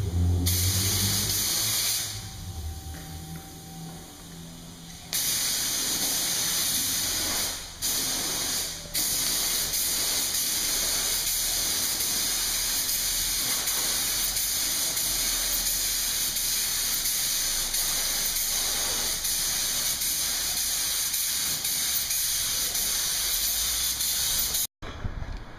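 Compressed-air gravity-feed paint spray gun hissing as it sprays paint onto a boat hull. The trigger is released for about three seconds near the start and briefly twice more, then the spray runs steadily.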